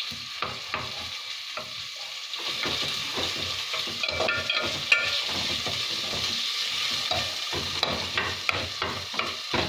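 Ginger-garlic paste frying in hot oil in a wok, sizzling steadily while a utensil stirs and scrapes it around the pan, with a sharp knock about halfway through.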